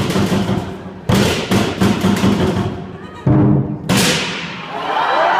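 Lion dance percussion: a large Chinese lion drum beating with crashing cymbals, loud sudden hits about a second in, at three and at four seconds, each ringing on. Voices rise near the end as the music dies away.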